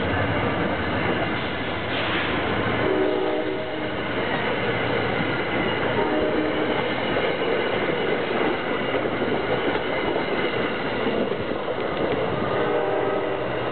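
NJ Transit passenger train of Comet coaches behind a PL42AC locomotive passing, a loud steady rumble of wheels on rails, with short pitched notes coming and going above it.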